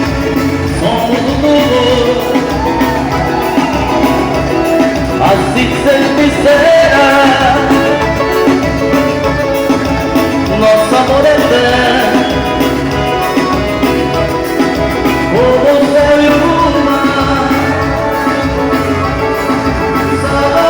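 Forró music playing loud and steady: a band with a driving, even beat and a gliding melody line over it.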